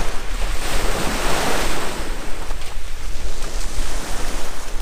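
Sea waves washing against the shore, one surge swelling about a second in, with wind buffeting the microphone as a steady low rumble.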